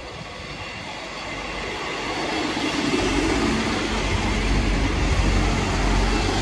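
Northern Class 158 diesel multiple unit pulling into the platform: the low rumble of its diesel engines and wheels grows louder over the first three seconds as the train draws alongside, then holds steady and loud with a steady low tone.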